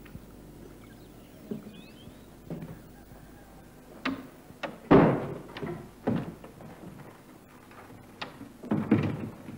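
Knocks and thuds of a wooden door being handled: a string of separate hits, the loudest about five seconds in, and another cluster near the end as the door is worked.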